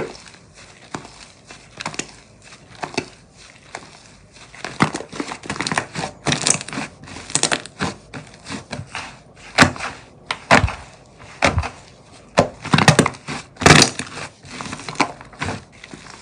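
Thick white slime being stretched, folded and squeezed by hand, giving irregular sticky clicks and crackling pops. The clicks are sparse at first and grow denser and louder from about five seconds in.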